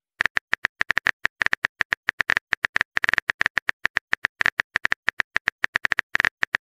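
Rapid keyboard tap clicks of a texting app's typing sound effect, about eight to nine short clicks a second at an uneven pace, as a message is typed out letter by letter.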